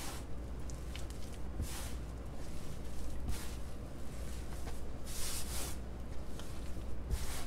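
Hands mixing and kneading crumbly flour-and-lard tortilla dough: irregular rubbing and squishing as the mix is gathered and pressed together, with a low steady hum underneath.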